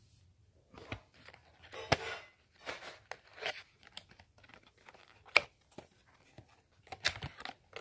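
Webcam's cardboard retail box being handled and opened: scattered short rustles and scrapes of packaging with a few sharp clicks.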